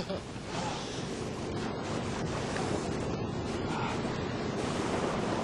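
Steady noise of ocean surf, with wind on the microphone.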